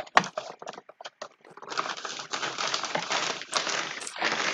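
A few sharp clicks and taps as a small box is handled, then from about a second and a half in, continuous crinkling of a plastic mailing bag being handled as the box goes into it.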